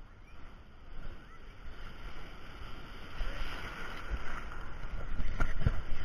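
Ocean surf washing around a camera held at water level: a steady rush of waves and foam that grows louder toward the end as a wave comes in, with a few sharp splashes near the end.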